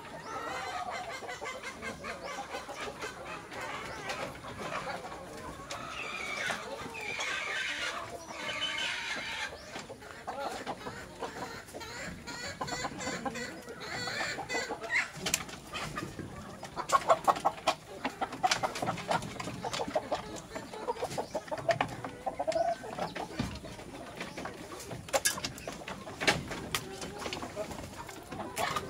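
A flock of chickens clucking at close range, busy and irregular, with a few sharp clicks and knocks in the second half.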